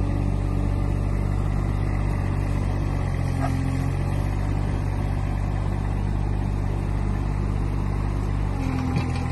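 Mini excavator's diesel engine running steadily while the machine digs soil.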